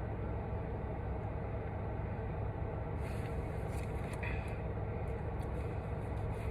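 Steady low rumble of a car in motion heard from inside the cabin, with a few brief clicks about halfway through.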